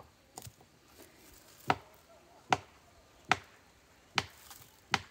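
A steady run of sharp chopping knocks, evenly spaced a little under a second apart, the first one fainter than the rest.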